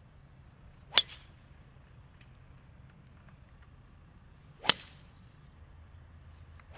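Golf drivers striking balls off the tee: three sharp metallic clinks with a brief ring, about a second in, about four and a half seconds in, and a third right at the end.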